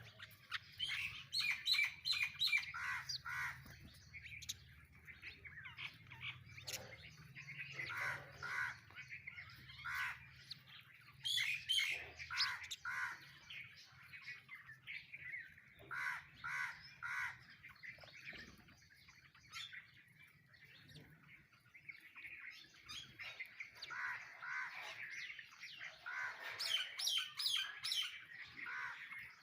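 A flock of sparrows chirping in quick, repeated bursts, with other birds calling among them.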